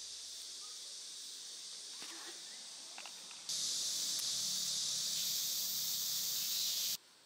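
Steady high-pitched hiss of insects in a summer vegetable garden. It gets much louder about three and a half seconds in and cuts off suddenly near the end. A few faint clicks sound before the jump.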